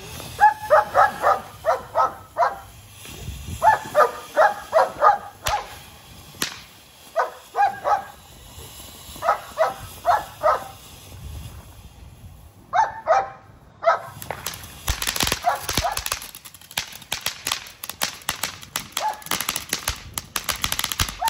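A dog barking in repeated bursts of four to six barks. About two-thirds of the way in, the barking gives way to a firework fountain crackling rapidly with many fast sharp pops.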